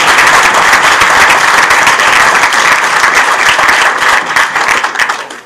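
Audience applauding, many hands clapping; the applause thins to a few separate claps and dies away near the end.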